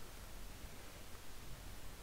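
Faint steady hiss with a low hum: room tone from the microphone.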